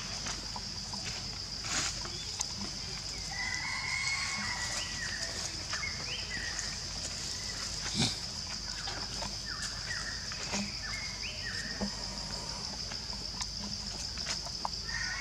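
Steady high-pitched insect drone, with a string of short stepped animal calls through the middle and a couple of brief knocks.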